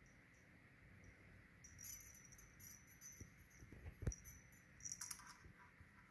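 Faint jingling and rattling of a feather wand cat toy on its wire as a kitten bats and grabs at it, with a soft thump about four seconds in.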